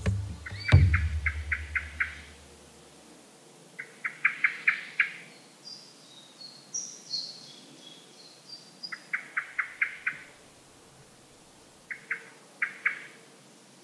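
Bird calling: a quick run of five or six short, evenly spaced notes, repeated every few seconds, with thin, higher chirps in between.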